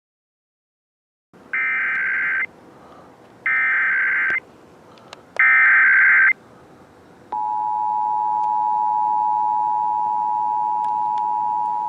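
Emergency Alert System SAME header: three bursts of high data tones, each just under a second long with about a second between them. They are followed, about seven seconds in, by the steady two-tone EAS attention signal (853 and 960 Hz), over a faint hiss. Together they open a statewide Required Monthly Test.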